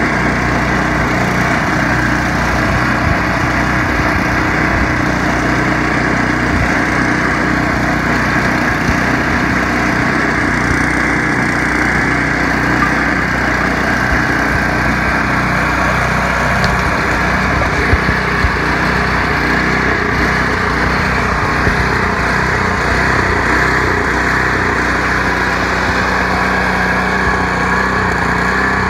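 John Deere 724D two-stage snowblower running steadily, its engine driving the auger and impeller as snow is thrown out of the chute.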